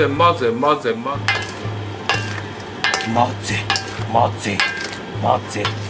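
A large mayonnaise-dressed cabbage salad being tossed and mixed in a stainless steel bowl: irregular wet rustling and crackling. A man's voice is heard in the first second, and a steady low hum runs underneath.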